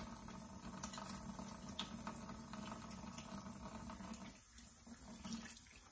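Faint wet handling sounds, soft pattering and small clicks, as raw pork chitterlings are worked by hand and their membrane pulled off, over a steady low hum.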